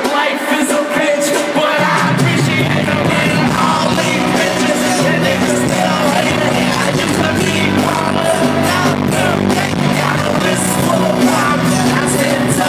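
Live hip-hop concert music played loud over an arena sound system, recorded from within the crowd; a heavy bass line comes in about two seconds in.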